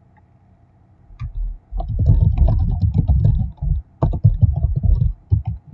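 Rapid dull clicks and knocks close to the microphone, starting about a second in and coming in dense clusters with a short break about four seconds in.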